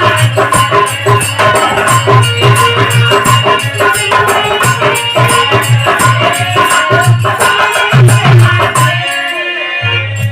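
Live bhajan band playing an instrumental passage between sung lines: a fast, steady shaker-like percussion beat over bass and melody. The bass drops out briefly about nine seconds in.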